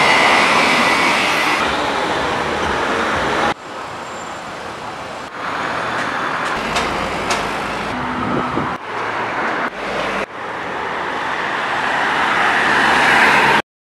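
City traffic noise, a steady wash of passing road vehicles, heard in several segments that change abruptly from one to the next. It cuts off suddenly near the end.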